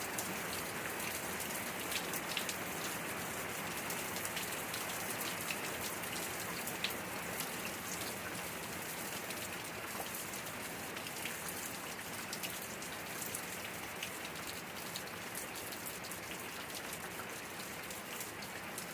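Steady rain falling, with many individual drops ticking sharply through the even hiss.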